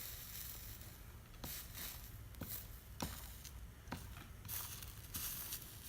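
Soldering iron working solder over flux on a copper-foiled stained glass seam: faint crackling and hissing with scattered small ticks.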